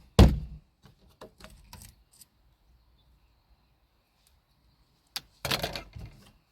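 Clicks and clatter of the parts of a Genie garage door opener being handled during disassembly: a sharp knock at the start, a few light clicks, then a longer rattling clatter near the end.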